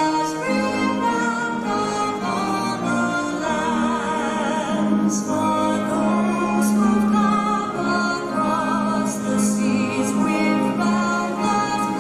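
A large group of school students singing together, held notes wavering.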